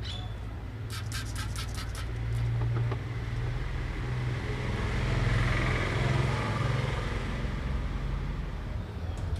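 Water being poured and splashed over a motorcycle headlight: a hiss that swells to its loudest about halfway through and then fades, after a quick run of clicks near the start. A steady low rumble runs underneath.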